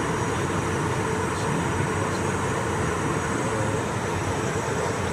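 Steady cabin noise of an aircraft in high-altitude cruise: an even rush of airflow and engine noise with a constant mid-pitched hum.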